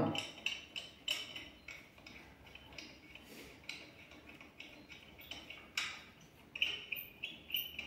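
Wheel bolts being turned in by hand on a van's steel wheel: scattered light metallic clicks and clinks of the bolts against the wheel and hub, at irregular intervals.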